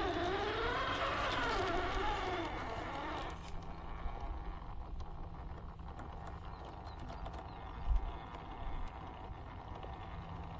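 Electric motor and gearbox of an RGT EX86190 1/10 RC rock crawler whining, the pitch rising and falling with the throttle for about three seconds before stopping. After that come scattered clicks and a single knock of the chassis and tyres on rough ground.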